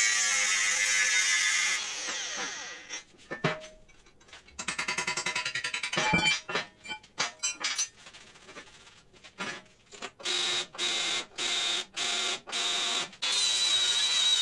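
Angle grinder grinding the edge of a steel plate, spinning down about two seconds in. Clinks and knocks of tools and steel being handled follow. From about ten seconds a power tool runs in short bursts, then runs steadily near the end as a disc works the plate face.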